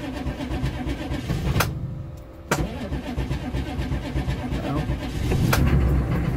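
GM 6.5-liter turbo diesel V8 being cranked by the starter and starting up, running fuller and louder from about five seconds in.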